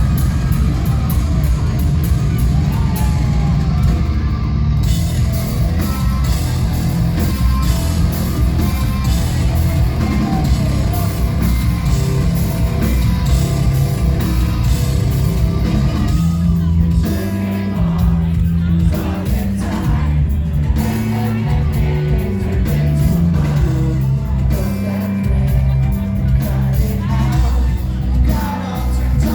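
Live rock band playing loud with a lead singer: drums, distorted guitars and bass under sung vocals.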